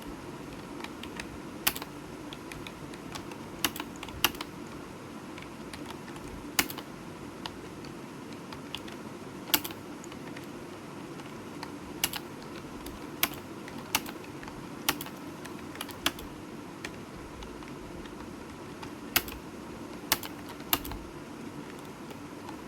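Computer keyboard being typed on: irregular key clicks, a few sharper and louder than the rest, over a steady low background hum.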